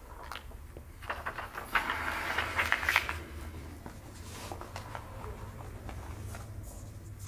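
Paper rustling and crackling as loose sheets are handled, with a flurry of crisp rustles and clicks between about one and three seconds in. A steady low hum runs underneath.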